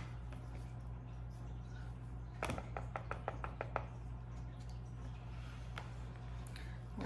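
Wire whisk stirring thick soap batter in a plastic bowl: a quick run of about seven sharp clicks of the whisk against the bowl a couple of seconds in, then a few faint ticks, over a steady low hum.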